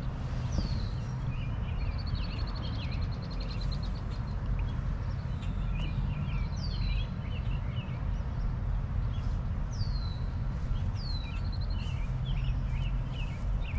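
Several songbirds calling: sharp falling whistles a few times, a short trill early on, and many small chirps. Underneath runs a steady low rumble.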